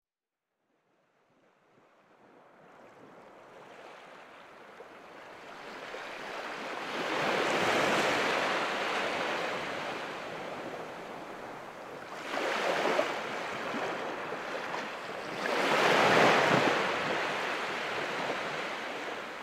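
Ocean waves washing in, fading up from silence, then three surges of surf a few seconds apart, the last the loudest.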